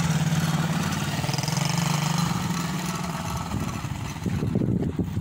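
Small quad bike engine running with a steady hum that fades away about halfway through, followed by a few irregular low thumps near the end.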